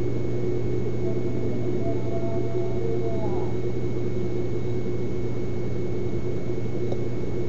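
A steady mechanical hum, with faint voices in the background for a moment a couple of seconds in.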